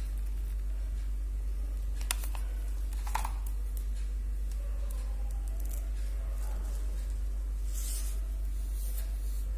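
Steady low hum throughout, with two short, sharp clicks about two and three seconds in and a brief rustle near the end, from small craft pieces being handled.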